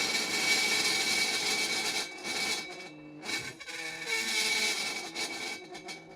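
Dry ice pressed against a metal pan, the metal vibrating with a hissing screech that carries a steady high ring and lower wavering, moaning tones. It comes in two long surges with a brief drop about three seconds in.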